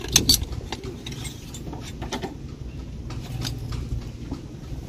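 Metal parts of a Strut Pro cutless-bearing puller kit clinking and knocking as they are picked out of a hard plastic tool case. There are a few sharp clinks near the start, then scattered lighter ones.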